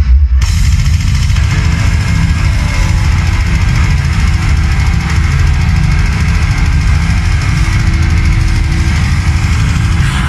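Black metal band playing live at full volume, with distorted electric guitars and drums. The full band comes in together just after a brief break at the very start.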